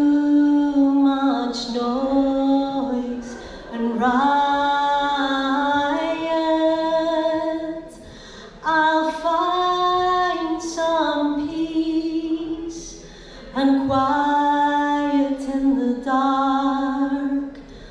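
A woman singing solo and unaccompanied into a microphone. She holds long, sliding notes in phrases of a few seconds, with short breaths between them.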